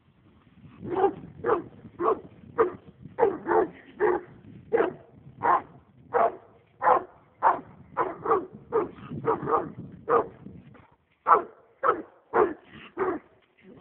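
American leopard hound barking in a quick, steady run of short barks, about two a second, starting about a second in; the hound is worked up over a raccoon.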